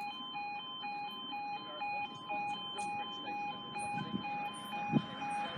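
Level-crossing warning alarm sounding as the red road lights flash: an electronic two-tone 'yodel' alternating steadily between a lower and a higher pitch, each tone coming about twice a second. A dull thump about five seconds in.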